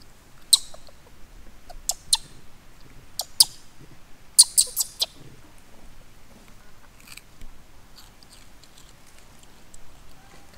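A long-tailed macaque biting and chewing a piece of crisp fruit: sharp crunching clicks in a few short clusters, the quickest run of about four near the middle, then only faint ticks.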